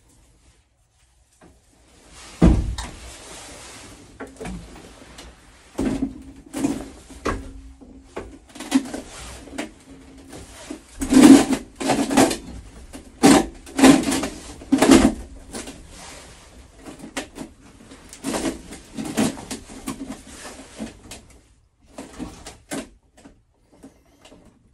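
Knocks, clatter and rubbing as plumbing pipe and fittings are handled and worked on, the loudest knocks in the middle, with a faint steady low hum coming and going.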